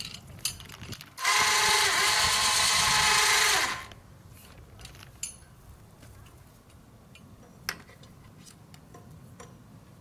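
Electric winch on a crane running for about two and a half seconds, a loud steady motor-and-gear sound that starts and stops abruptly.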